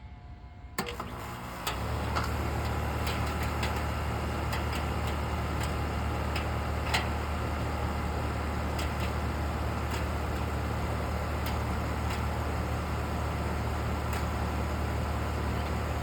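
Air conditioner starting up: a click about a second in, then under a second later the compressor and fan come on and settle into a steady low hum with a rushing of air. Scattered light ticks sound through the running.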